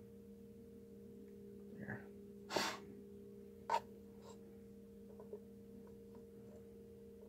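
A serving utensil scooping cooked egg noodles in a metal pot, with a few light clicks and taps against the pot, the sharpest a little before the middle. About two and a half seconds in there is a short breathy noise, all under a steady low hum.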